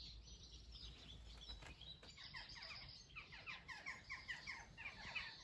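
Faint birdsong: a bird's quick run of short chirps begins about two seconds in and carries on, over a quiet outdoor background.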